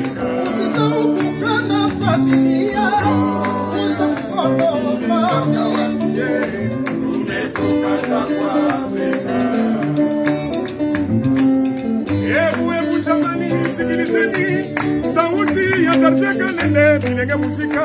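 A band playing live: electric guitars over a repeating bass line, with several singers singing together, in a Congolese rumba style.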